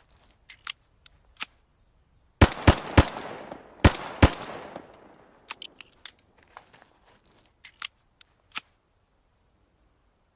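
M1911 pistol firing five shots. Three come in quick succession about two and a half seconds in, then two more about a second later, each trailing off in an echo. Light clicks come before and after the shots.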